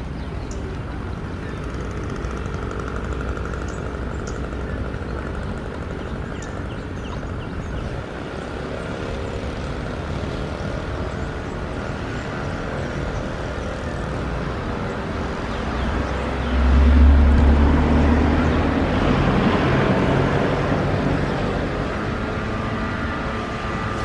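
Engine noise of something passing: a steady background rumble that swells to its loudest, with a deep hum, about two-thirds of the way through, then fades back.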